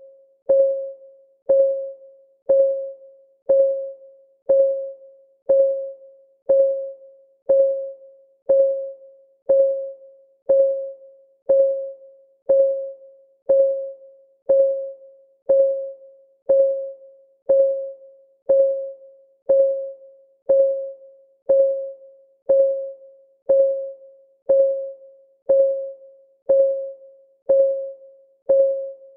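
Countdown timer's clock-ticking sound effect: a steady tick about once a second, each a short pitched tick that dies away quickly.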